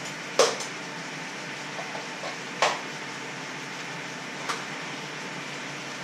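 Steady rushing kitchen noise with three sharp clacks about two seconds apart, the first the loudest, from an electric hand mixer being handled.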